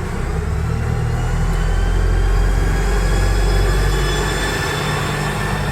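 Electric train moving through the station: a heavy low rumble that swells toward the middle, with a thin motor whine that slowly rises in pitch as it gathers speed.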